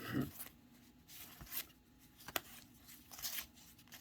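Faint rustling and sliding of trading cards being handled and flipped through by hand, with a sharp tap about two and a half seconds in.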